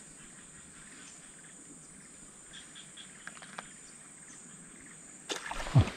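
Steady high-pitched insect drone in grassy vegetation, with a few faint ticks in the middle. A sudden louder noise breaks in near the end.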